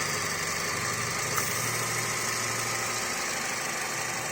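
Chevrolet Sonic engine idling roughly, the idle rising and falling, with a single small click about a second and a half in. The unsteady idle is the sign of a leaking PCV valve.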